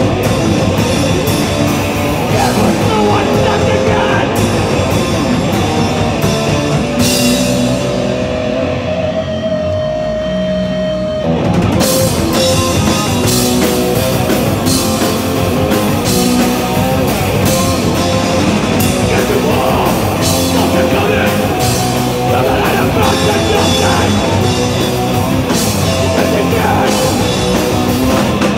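A live band playing loud, distorted rock with electric guitar, bass and drums. About eight seconds in, the drums and cymbals drop out and a held guitar note rings alone for a few seconds, then the full band crashes back in and keeps going.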